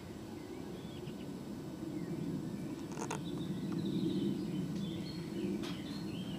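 Steady low outdoor background rumble with faint, scattered chirps of small birds, and two faint clicks about three and five and a half seconds in.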